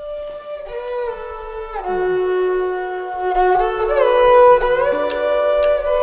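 Background music: a slow melody on a bowed string instrument, its notes gliding from one pitch to the next.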